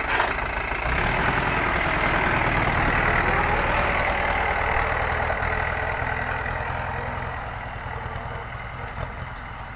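Diesel engine of heavy earth-moving equipment running. It picks up about a second in, then gradually fades over the last few seconds.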